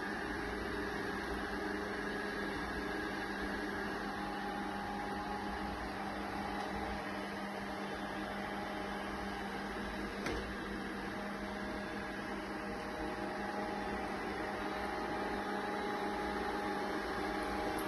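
MONSGA robot vacuum running: a steady motor hum with a few fixed tones over a noise floor, and a single click about ten seconds in.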